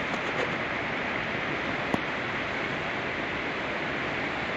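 Steady rush of water, an even hiss with one faint click about two seconds in.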